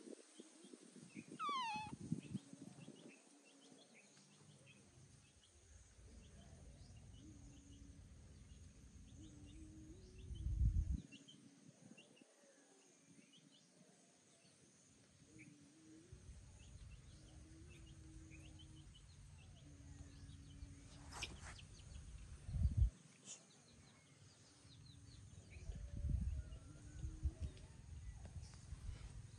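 Outdoor rural ambience: scattered small bird chirps throughout, with one falling whistled call about a second and a half in. Under them run a faint steady drone that shifts in pitch now and then and several low rumbling swells, the loudest about ten seconds in and again after twenty seconds.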